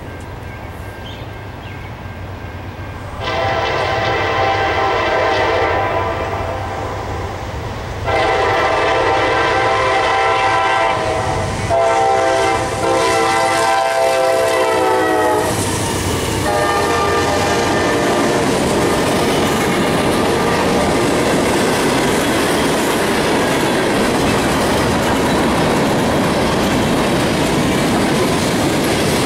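A CSX diesel freight locomotive's multi-chime air horn sounds a short blast and then a long one as the train approaches. The horn's pitch drops as the locomotive passes. Then the two locomotives and a string of tank cars roll by with steady wheel rumble and clickety-clack over the rail joints.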